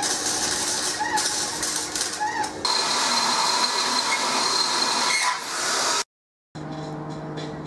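Arc welding: a steady, loud hiss that changes tone about two and a half seconds in and cuts off suddenly after about six seconds. After a short silence, a quieter steady hum follows.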